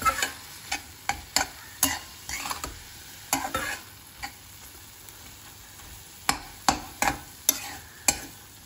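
Spatula scraping and knocking against a kadhai as cooked red amaranth greens are stirred and turned over, with a faint sizzle underneath. The strokes come irregularly, pause for a couple of seconds midway, then come quickly again near the end.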